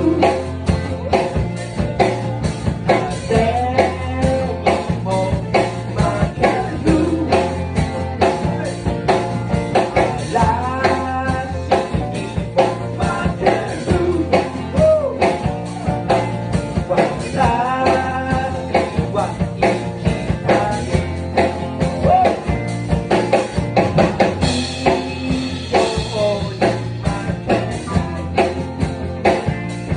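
Rock band playing a blues-tinged rock song: electric guitar and drum kit keeping a steady beat, with singing.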